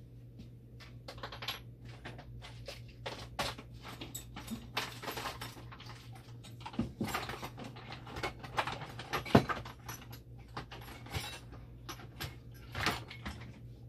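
Rummaging through small metal spare parts: irregular clinks, rattles and knocks, with a sharper knock about nine seconds in and another near the end. A steady low hum runs underneath.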